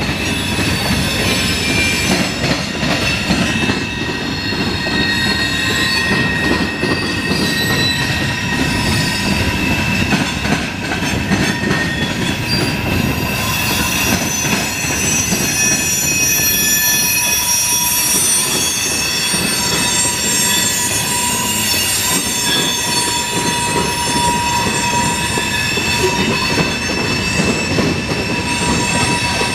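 CSX freight train of flatcars loaded with steel coils rolling past, its wheels squealing in several steady high-pitched tones over a continuous rumble and clatter of the cars, as the train takes the curve where it turns from eastbound to northbound.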